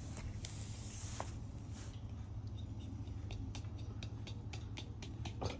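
Light wooden clicks and taps of Jenga blocks as a block is nudged and slid out of the tower, coming quicker over the last couple of seconds, over a steady low hum.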